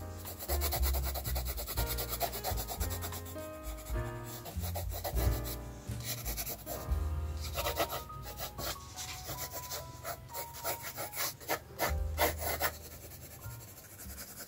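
Graphite pencil scratching and rubbing across sketchbook paper in repeated shading strokes, over background music with a bass line.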